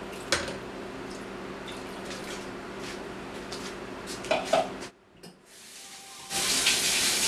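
Water poured from a plastic measuring cup over tamarind pulp in a metal strainer, trickling and draining through it into the pot below, with a couple of light knocks about four and a half seconds in. After a brief near-silent gap, a loud steady hiss starts about six seconds in.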